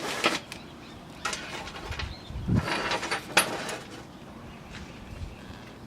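Scattered metallic clicks and clatter of hand tools and engine parts being handled, busiest in the middle, with one dull thump about two and a half seconds in.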